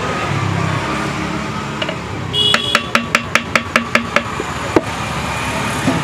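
A quick run of about nine light taps, roughly five a second, on an earthen clay pot (matki), a tool chipping an entrance hole for a budgie nest. One lone click follows about a second later.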